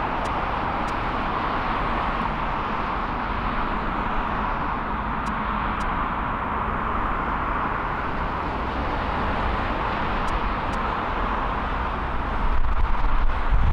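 Jet airliner engine noise: a steady rushing sound that swells and fades slowly. From about twelve seconds in, low wind buffeting on the microphone grows louder.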